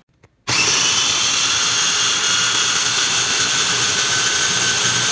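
Electric food chopper's motor starting about half a second in and running steadily at high speed, with a whine, as it blends boiled, peeled tomatoes into puree.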